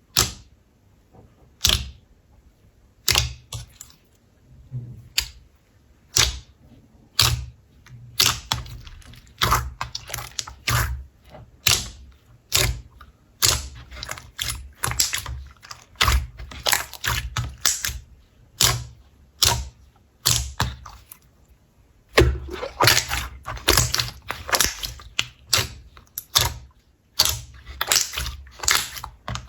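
Slime being squeezed and poked by hand, making sharp sticky clicks and pops. They come about one a second at first, then faster and more crowded from about eight seconds in, busiest in the last seven seconds.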